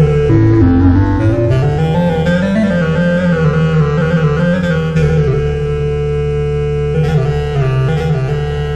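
Keyboard-instrument music from an arranger sound set. A sustained melodic voice in a reed or bowed-string timbre slides and ornaments between notes over a steady held bass tone.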